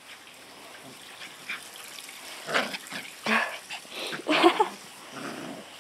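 Young puppies play-fighting, giving a run of short yips and squeals in the second half.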